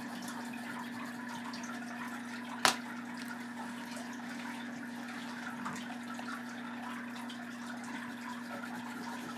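Faint scratching of an oil pastel stroking over paper, under a steady electrical hum and hiss, with one sharp click nearly three seconds in.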